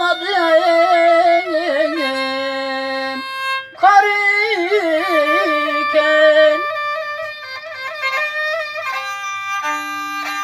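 Violin held upright on the knee and bowed, playing a folk melody with wavering, ornamented notes. It breaks off briefly about three seconds in, then goes on.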